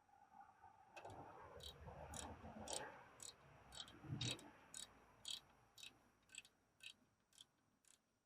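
Ratchet wrench clicking in an even rhythm, about two clicks a second, as caliper bolts are run back in, with some dull handling knocks in the first half.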